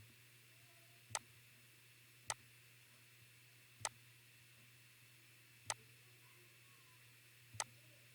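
Five single sharp clicks of a computer mouse button, irregularly spaced over a few seconds, against a faint steady hum of room and recording noise.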